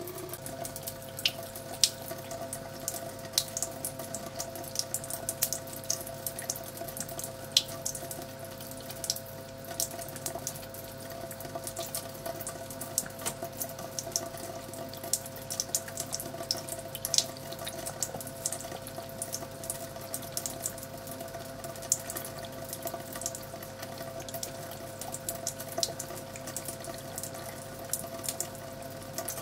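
Thin stream of water running from a bathtub lever mixer tap, with a steady humming tone and irregular splashing ticks as a cat laps from the stream. The tap is turned on at the very start.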